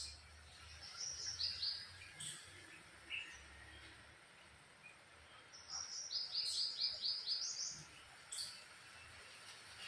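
A songbird singing, two quick runs of short high repeated notes, about a second in and again around six seconds in. A few sharp clicks fall between them.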